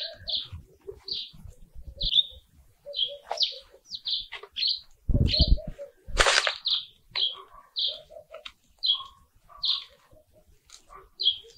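A bird chirping over and over, one short call every half second to second. Under it come the rustle of hands working loose potting soil and roots, and one sharper scrape about six seconds in.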